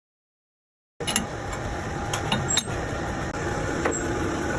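Silence for about a second, then metal-working lathe noise cuts in abruptly: a steady mechanical running sound with a faint hum and several sharp metallic clicks and clinks.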